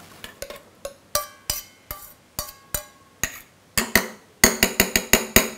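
A metal spoon clinking and tapping against stainless-steel bowls, as soaked chana dal is scraped and knocked out. The taps are sharp and ringing: scattered at first, then coming quickly in a cluster near the end.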